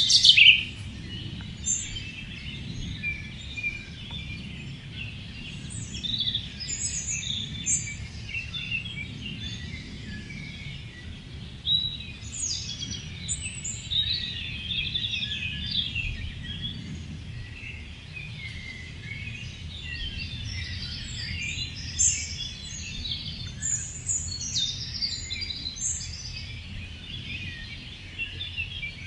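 Morning forest chorus of many birds chirping and singing at once, overlapping short calls and trills, over a steady low background rumble.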